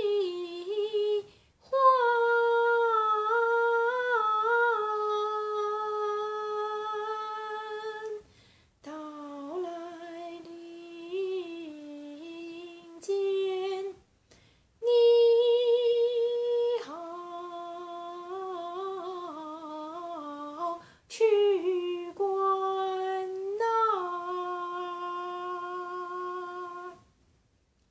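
A woman singing Beijing opera unaccompanied, drawing out long held vowel notes with wavering ornaments and stepwise changes in pitch, broken by short pauses for breath.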